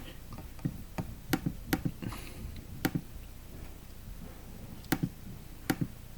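Irregular light clicks and knocks, often in quick pairs, of food packaging being handled, with a brief faint rustle about two seconds in.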